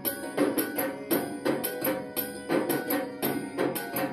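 Background music with a steady percussion beat, about four hits a second.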